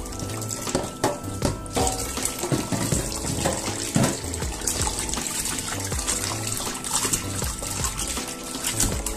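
Tap water running and splashing into a stainless-steel bowl as hands rub and squeeze raw offal under it to wash it, with background music.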